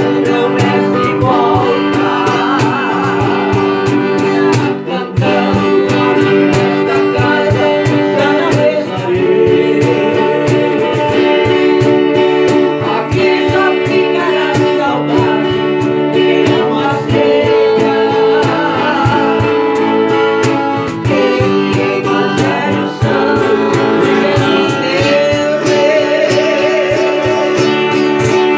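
Viola caipira, the Brazilian ten-string folk guitar, plucked as a song accompaniment, with a voice singing over it.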